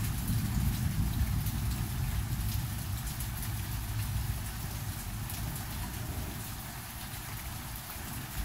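Storm rain falling, with scattered sharp drop ticks, over a strong uneven low rumble of wind on the phone's microphone that slowly eases off.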